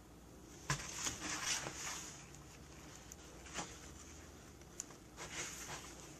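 Cat scuffling and scratching inside a cardboard box. It starts with a sudden bump under a second in, then brief scratchy rustles in bursts, a single tap midway, and more rustling near the end.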